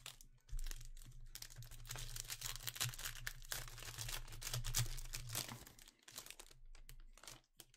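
Shiny plastic wrapper of a Panini Prizm trading-card pack crinkling as it is torn open and peeled back off the cards. The crinkling is continuous for about five seconds, then breaks into a few short rustles as the cards are pulled out.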